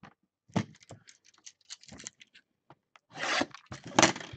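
Gloved hands handling a cardboard hockey card hobby box: scattered light taps, scrapes and rustles, with a longer rustle about three seconds in and a sharp tap about four seconds in.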